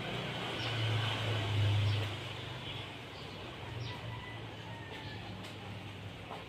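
A motor vehicle's engine rumbling past, loudest about one to two seconds in and then fading. Faint short high bird chirps come through every second or so.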